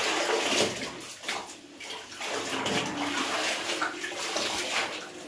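Clothes being washed by hand in a plastic tub of soapy water: water splashing and sloshing in repeated surges as garments are dunked, lifted out and squeezed.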